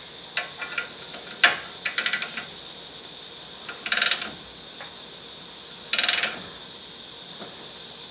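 Hand ratchet clicking in short runs of rapid clicks, about four times, as it turns the forcing screw of a tie rod end puller to press the outer tie rod end out of the steering knuckle. A steady hiss runs underneath.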